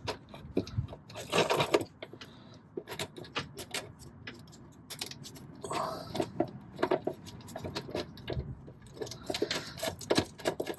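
Small metal parts clicking, clinking and scraping in irregular handling noises as washers and throttle pedal linkage pieces are fitted by hand.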